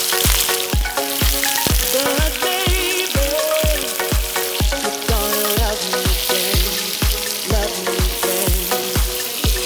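Shrimp cakes frying in hot oil, a steady sizzle, under background music with a steady beat.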